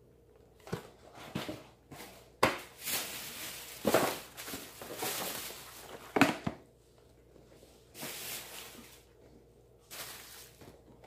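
Groceries being handled: irregular bursts of rustling and crinkling packaging, with a few sharp knocks as items are moved and set down.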